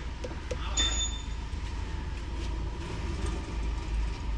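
Diesel car engine idling with a steady low rumble, with a few light ticks and a short high electronic beep about a second in.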